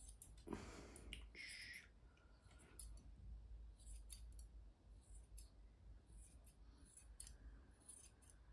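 Faint, irregular snips of grooming shears cutting a Pomeranian puppy's fluffy fur, with a brief rustle about half a second in.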